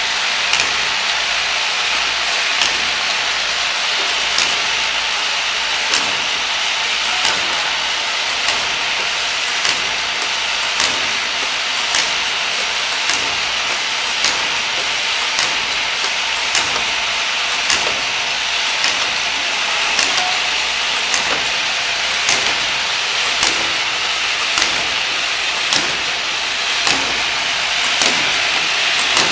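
Child-resistant cap assembly and lining machine running: a steady mechanical hiss and rattle with a sharp click repeating about once a second.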